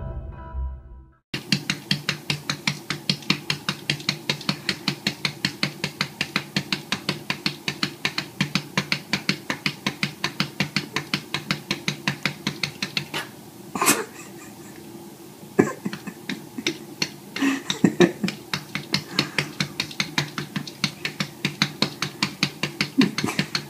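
A cat's paws tapping rapidly on a glass door pane, a quick even rhythm of about four to five taps a second. The tapping breaks off briefly about halfway through around one louder knock, then picks up again.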